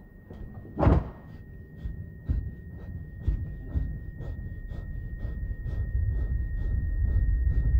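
Film soundtrack sound design: a steady high tone held throughout, under short, evenly spaced ticks about three a second, with one louder knock about a second in. A low rumble swells toward the end.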